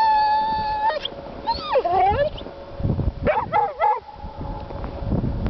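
Dog whining for food: one long steady high whine, then a shorter whine that dips and rises, then a few quick yelping whimpers about three seconds in.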